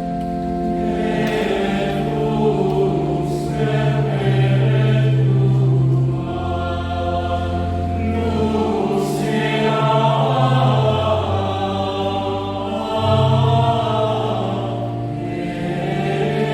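Choir singing a slow Requiem chant, holding long chords over a low bass line that steps to a new note every second or two.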